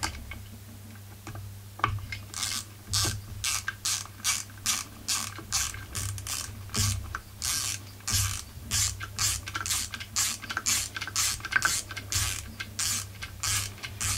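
Small hand ratchet clicking in repeated short strokes, about two a second from about two seconds in, as it drives in an ignition coil mounting screw.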